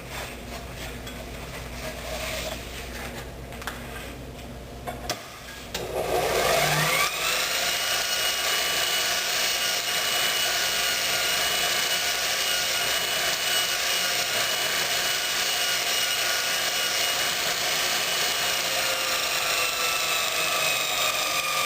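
Bench grinder driving a Multitool 2 x 36 inch belt grinder attachment, starting up about six seconds in with a rising whine and then running steadily. A steel railway spike rubs against the 1200-grit Trizac belt as it is smoothed to a satin finish.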